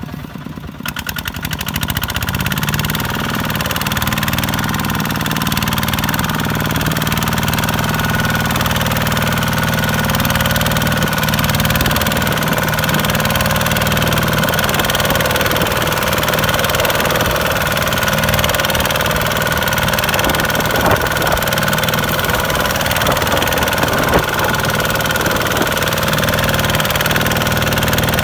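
Kubota ZT155 single-cylinder diesel engine of a two-wheel walking tractor running under load, pulling a loaded trailer through mud. It rises in pitch and loudness over the first two seconds or so, then runs steadily.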